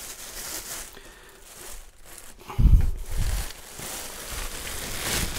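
Clear plastic bag wrapping crinkling as it is pulled off and around a heavy machine, with a dull thump about two and a half seconds in as the unit is handled.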